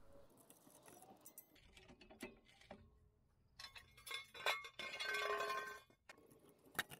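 Faint metallic clinks and clicks from a hydraulic floor jack being worked by its handle, with a brief squeaky metallic creak for about a second a little past the middle.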